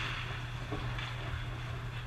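Ice arena ambience during play: a steady low hum under a broad noise haze, with a faint click about a second in.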